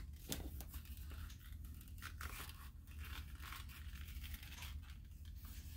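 Faint rustling and scraping of a leather knife sheath being handled, a few soft strokes scattered over a steady low hum.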